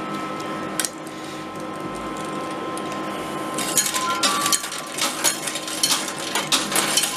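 Coin pusher machine running with a steady mechanical hum; from about three and a half seconds in, metal coins clink and clatter as they drop and are shoved across the coin bed.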